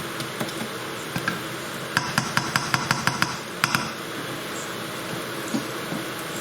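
A utensil tapping sharply against a frying pan about eight times in quick succession, then twice more, over the steady sizzle of onions, garlic and chillies frying in oil.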